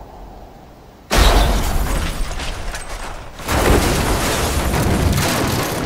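A car crashing down a rocky quarry wall: a sudden heavy crash about a second in that slowly dies away, then a second heavy crash about two and a half seconds later.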